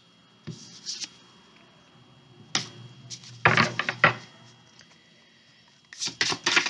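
Tarot cards being handled: light rustles and a sharp snap as cards are moved, a louder rustling burst in the middle, then a fast run of crisp flicks near the end as the deck is shuffled.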